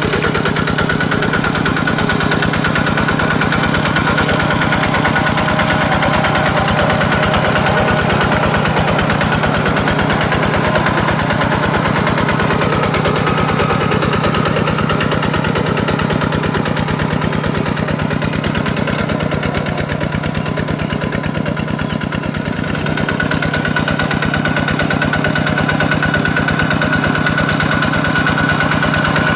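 Kubota RT140 walking tractor's single-cylinder diesel engine running steadily under load as it pulls a disc plough and cage wheels through paddy mud, with a fast, even firing beat.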